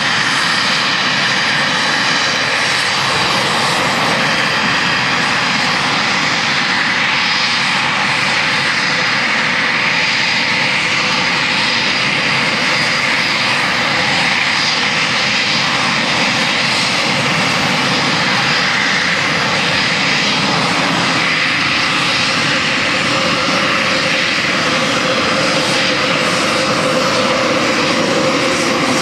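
Eurofighter Typhoon jet fighters taxiing, their twin turbofan engines running steadily at taxi power with a continuous loud jet noise.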